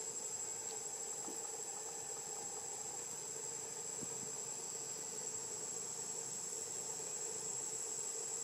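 Steady chorus of forest insects: an even high-pitched buzz or trill that never lets up, over a lower steady drone.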